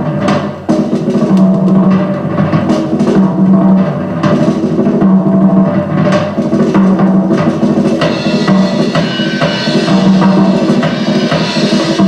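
Drum-kit percussion played back from a vinyl audio check record through hi-fi loudspeakers in a listening room: a run of bass drum and snare strikes, with higher sustained notes joining about eight seconds in.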